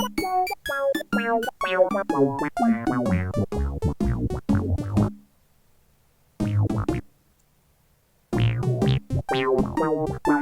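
Background music of synthesizer and electric-piano notes in a steady rhythm. It breaks off about five seconds in, plays one short phrase, falls silent again, and resumes near the end.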